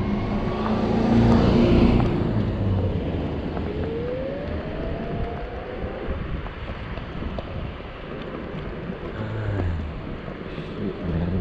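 A Zero 9 electric scooter riding along a street: steady wind and road noise on the chest-mounted microphone, with a whine rising in pitch about four seconds in.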